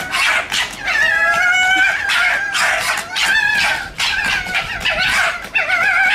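Two red foxes sparring upright, jaws wide, screaming and gekkering at each other: a continuous, high, wavering chatter of calls without a break.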